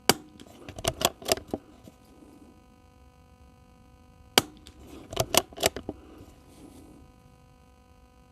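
Two suppressed .22 rimfire shots from a Tikka T1X bolt-action rifle fitted with a Gemtech suppressor, about four seconds apart. Each shot is followed by a quick run of sharp clicks as the bolt is worked to chamber the next round.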